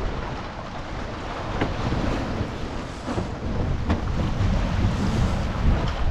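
Wind buffeting the microphone over the rushing hiss of choppy water streaming past a racing sailboat's hull, with a few faint slaps of waves; the wind rumble grows louder toward the end.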